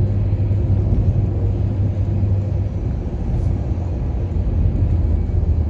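Steady low rumble of a car driving along a sealed road, heard from inside the cabin.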